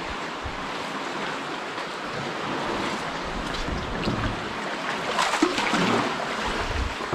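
Ocean swell surging and splashing against the rock walls of a narrow sea-cave channel around a canoe, a steady wash that builds louder about five seconds in.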